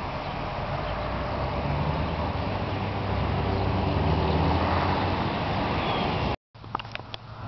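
Motor vehicle traffic, a low engine drone under tyre and road noise, growing louder over several seconds and then cutting off abruptly. After the break come a few sharp clicks over quieter background.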